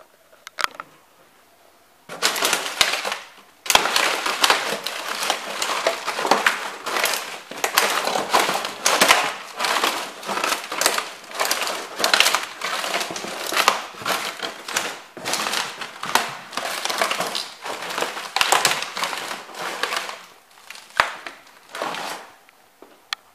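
Cofra thermo boots trampling a cardboard box full of broken model train house pieces, which crunch and crackle continuously under repeated stomps. It starts about two seconds in and dies away just before the end.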